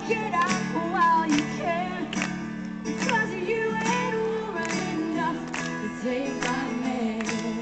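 Live band music: a woman's lead vocal singing over guitar, with a steady beat.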